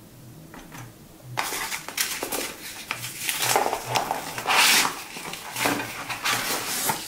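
Cardboard drone box's white insert tray being gripped and worked out of the box. A busy run of scraping, rubbing and light knocks starts about a second and a half in.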